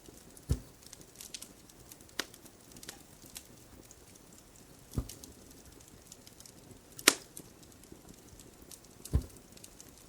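Needle popping through needlepoint canvas in tent stitch, a sharp click or soft knock every couple of seconds, the loudest one about seven seconds in. Faint crackling of a fireplace runs underneath.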